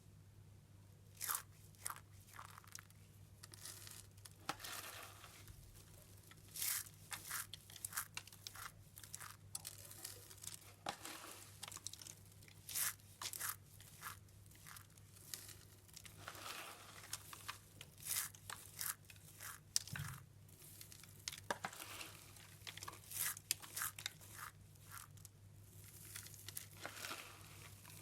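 Grated soap shavings crunched and crumbled by hand, with many sharp crunches in irregular clusters and short crackly rustles between them.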